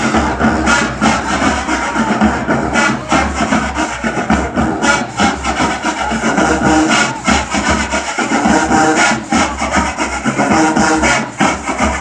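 Marching band playing brass and drums, with a steady beat of drum hits under sustained horn chords.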